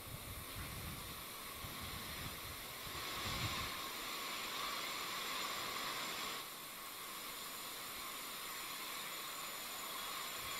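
Faint, distant noise of a Falcon 9 rocket's nine Merlin first-stage engines climbing after liftoff. A crackling low rumble in the first three seconds or so fades, leaving mostly a steady hiss.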